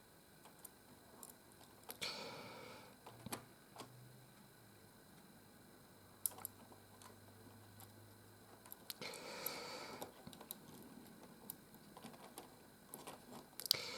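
Scattered light clicks and short rustles of plastic Lego pieces and thin light-kit wires being handled, with a couple of longer bouts of rustling.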